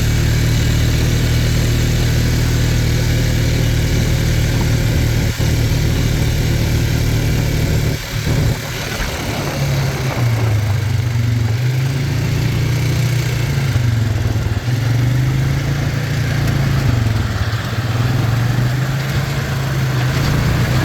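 Tractor engine running steadily while pulling a round baler that picks up windrowed hay, with the baler's mechanical noise underneath. From about halfway the engine note rises and falls every couple of seconds.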